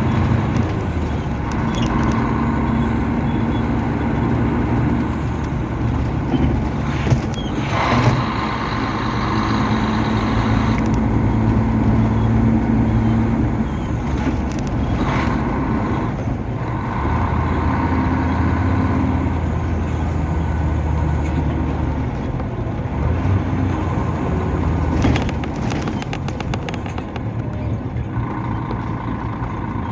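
Mercedes-Benz O500-RS coach's 354-hp diesel engine running while the bus is driven, heard from inside the coach. The engine note shifts pitch several times. There is a brief hiss about eight seconds in and a few short clicks later.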